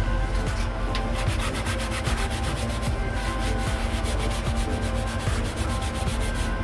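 Paper towel rubbing and scrubbing over a laser-engraved MDF board, wiping off foamy cleaner in quick repeated strokes.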